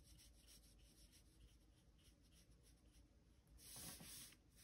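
Near silence, with faint soft strokes of a round watercolour brush dabbing paint onto a small watercolour paper card, and a brief, slightly louder rustle near the end.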